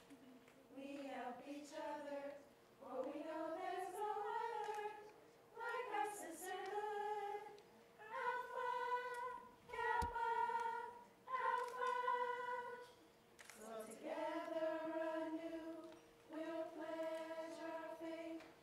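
Group of women singing together without accompaniment, in slow phrases of long held notes with short pauses between them.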